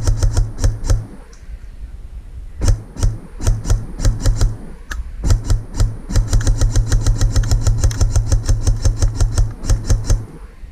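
Airsoft rifle firing fast strings of shots, each shot a sharp crack over a short mechanical whir, with brief pauses between strings and the longest, quickest run near the end.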